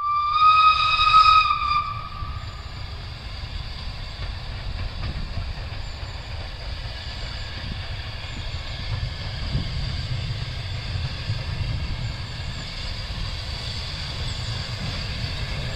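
Steam locomotive Holly Bank No.3 sounds its whistle once, a loud steady tone lasting about a second and a half, then runs on with a steady low rumble and hiss of steam.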